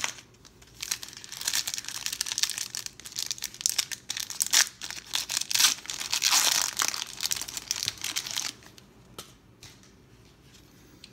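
Foil wrapper of a 1992 Pro Set football card pack being torn open and crinkled by hand, a dense crackling that is loudest past the middle and stops a few seconds before the end, followed by a few light ticks.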